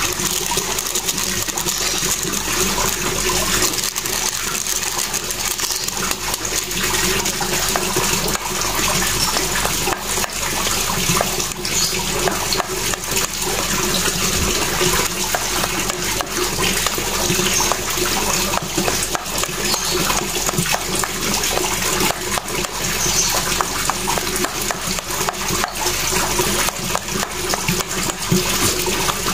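Steady rush of running water, with a plastic spoon stirring thick dough and scraping and clicking against a stainless-steel bowl.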